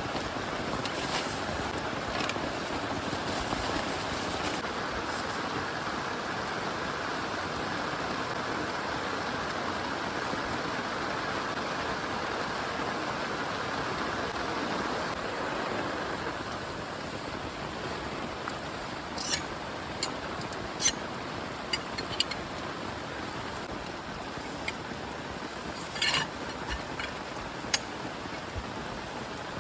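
Heavy rain falling steadily, easing a little about halfway through. In the second half, single loud drops strike a surface close by as sharp ticks, several seconds apart.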